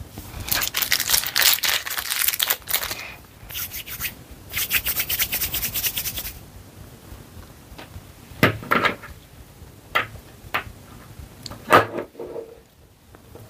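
Palms rubbing quickly back and forth as they roll a piece of air-dry clay, in two bursts of rapid scratchy strokes. A few separate sharp clicks follow in the second half.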